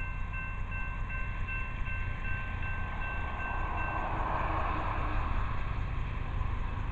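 CSX intermodal freight train approaching from a distance, its rumble growing louder after about four seconds. A pulsing high ringing tone sounds over it and stops about four seconds in.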